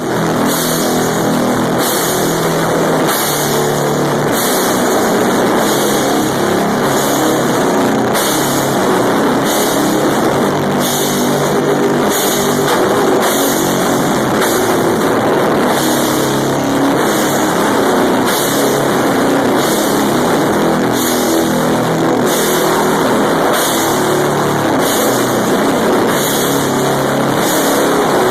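Live band playing loud, heavily distorted rock: guitars and drums, with cymbal crashes on a slow, steady beat about once a second. The sound is dense and saturated, as from a phone microphone overloaded by a loud stage.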